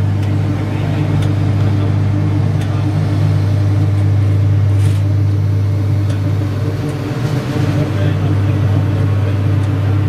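Concrete paving machine's engine running steadily, a deep drone with a few faint clicks from the machinery.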